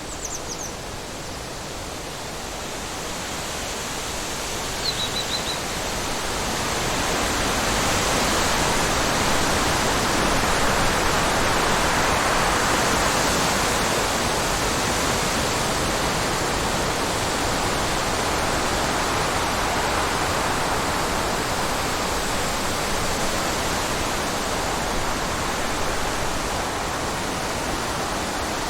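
Wind blowing as a steady, even rush of breeze that swells over the first several seconds and then holds. Two brief, faint high chirps come near the start and about five seconds in.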